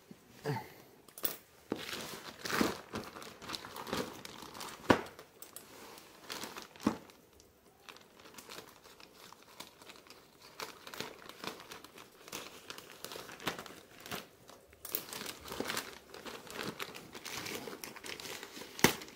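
Plastic bag and parcel packaging crinkling and tearing as it is handled and unwrapped, in irregular rustles with a few sharper knocks.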